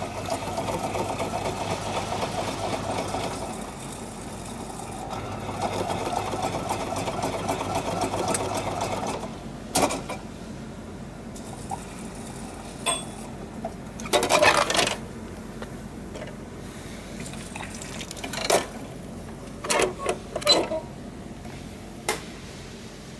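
A retro udon and soba vending machine's mechanism running with a steady motor whir in two stretches of a few seconds each while it prepares a bowl. Then come a few separate knocks and a short clatter as the dispensing flap and bowl are handled.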